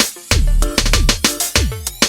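Background music with a quick drum beat, deep bass and notes that slide downward in pitch.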